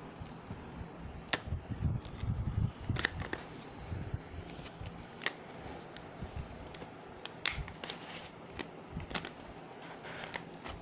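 A power bank's retail packaging being handled and opened by hand: scattered clicks, taps and rustling at an irregular pace, with low handling bumps in the first few seconds.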